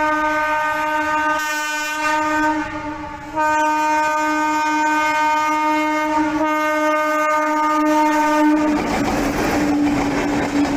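Indian Railways train horn sounding in long blasts with short breaks as the train accelerates. Near the end the clatter of the wheels on the rails rises under the horn.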